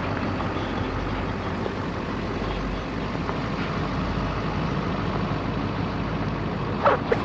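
Vehicle engine running steadily, a low hum with driving noise, with a couple of brief higher-pitched sounds near the end.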